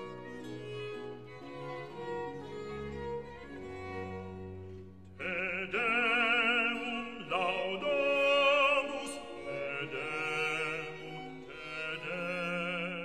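Operatic classical music: orchestral strings hold low sustained notes, then a singer with strong vibrato comes in about five seconds in and is the loudest part.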